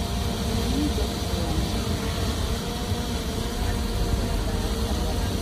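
Diesel engine of heavy earthmoving machinery running steadily, a low rumble with a faint even hum over it.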